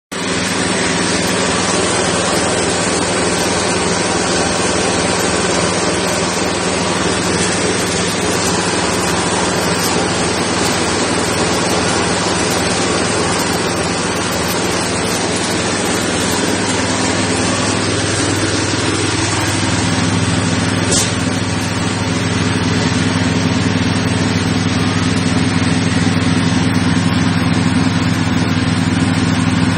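A multifunction chopper-grinder mill driven by a 6.5 hp engine, running steadily while grinding rice husk into flour: a steady engine hum under a dense rushing noise. About two-thirds of the way through, a pitch sweeps down and the low hum grows louder.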